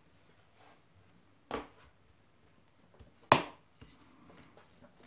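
Pastry dough being turned over and rolled out with a thin wooden rolling pin on a floured granite countertop: two sharp knocks, about two seconds apart, with the second louder, and faint rubbing of hands and dough between them.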